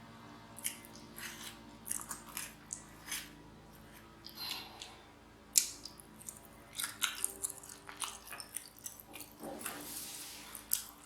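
A person chewing a mouthful of cheesy baked macaroni and cheese close to the microphone: soft, irregular wet mouth clicks and smacks.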